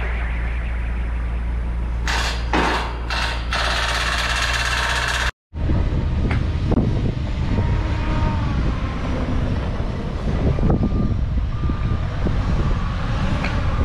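Heavy truck-mounted crane's diesel engine running as the crane drives across a dirt site. The sound cuts out abruptly about five seconds in and comes back as the crane moves.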